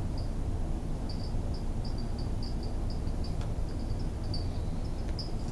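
Insect chirping, most likely a cricket: short, high chirps, several a second, over a steady low hum.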